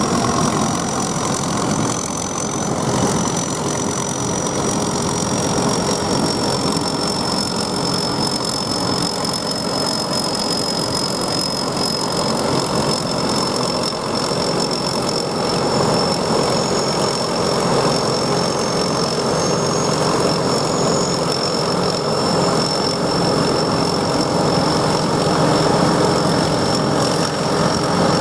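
Mini rice combine harvester running steadily, its engine and threshing machinery making a dense, even mechanical noise with a thin, steady high whine on top.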